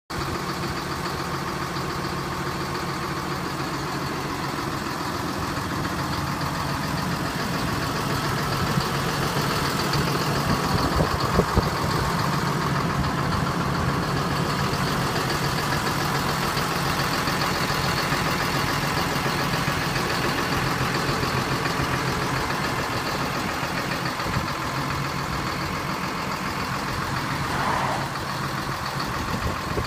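John Deere 6930 tractor's six-cylinder diesel engine idling steadily.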